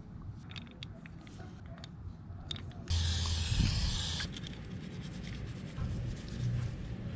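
A short burst of aerosol brake cleaner spraying, a steady hiss about a second and a half long that starts near the middle and cuts off sharply. Before it, small clicks and scrapes of parts being handled.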